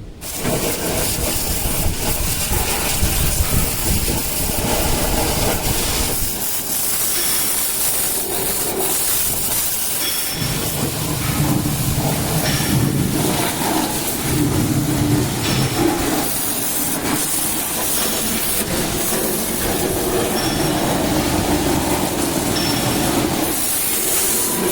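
Heavy machinery running with a loud, steady hiss, starting suddenly, its lower tones shifting in pitch now and then.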